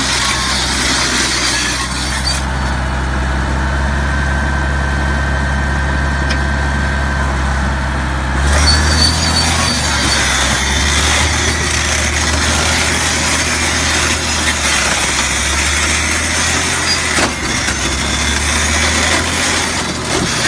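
Cat D8R crawler dozer's diesel engine running under load, with its steel tracks grinding and clanking through rocky soil. The engine note shifts and grows louder about eight seconds in.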